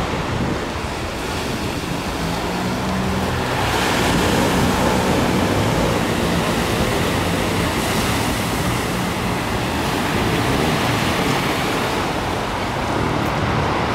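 Sea waves breaking and washing on a pebble beach, a steady surf noise, with a faint low hum underneath from a couple of seconds in until past the middle.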